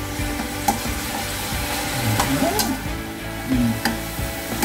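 Cabbage and carrots stir-frying in an aluminium pan: a steady sizzle with a metal utensil scraping and clinking against the pan several times.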